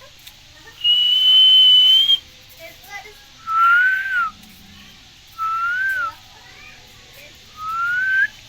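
Four clear whistles: one long, steady high note, then three shorter, lower notes that each rise and fall, with small faint chirps between them.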